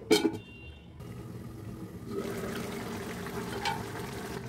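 Curry bubbling as it simmers in an open kadai on the stove, a steady wet bubbling that grows a little louder about two seconds in.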